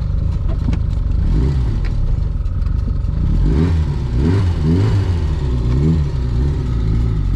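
Reliant Robin three-wheeler's small four-cylinder engine pulling the car along, heard from inside the cabin, its revs rising and falling several times around the middle.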